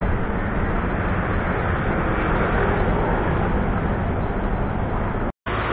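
A steady, loud rushing noise with a deep rumble underneath, cutting out for a moment near the end.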